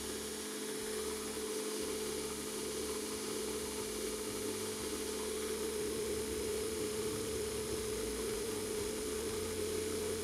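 Belt grinder running steadily, a constant hum over an even hiss, while a small brass handle guard is ground against its abrasive belt.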